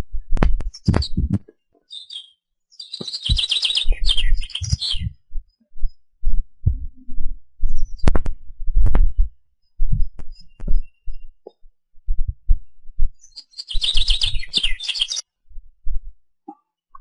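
Wind buffeting the microphone in irregular gusts, with a songbird singing twice, about three seconds in and again near the end.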